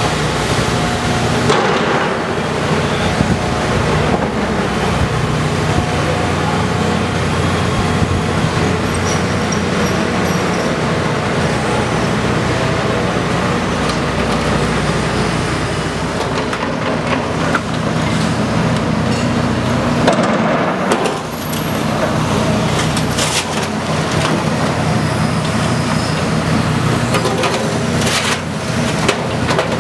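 Heavy diesel excavators running steadily with hydraulic whine, working a telescopic-arm clamshell grab. A few sharp knocks and clanks are heard about two-thirds of the way through and again near the end.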